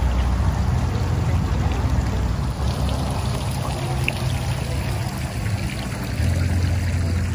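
Water splashing and trickling from a tiered garden fountain, a steady rushing noise. Under it a low rumble grows louder about six seconds in.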